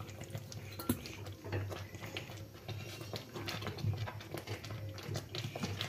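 A wooden spatula scrapes and taps in a metal pan as flour is stirred into a hot mixture, with one sharper tap about a second in. A low steady hum runs underneath.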